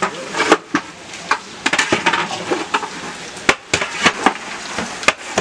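A long metal stirrer scraping and knocking irregularly against a large aluminium pot as chunks of beef are turned over, with the meat sizzling as it fries in oil.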